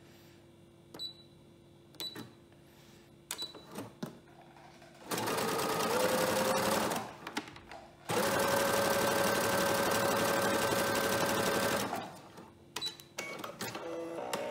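Brother Innovis 900D computerised sewing machine: a few short touchscreen beeps, then the machine sews a zigzag stitch in two runs, about two seconds and then about four seconds, its motor pitch rising as the first run gets up to speed. It runs freely, its hard jam cleared by cleaning out the lint.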